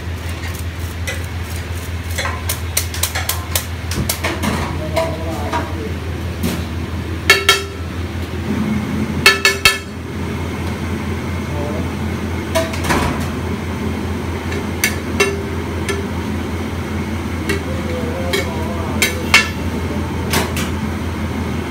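Street-food stall kitchen: metal utensils clanking with a ringing note over a steady low hum and background voices, with the loudest clangs coming in a quick cluster about a third of the way in.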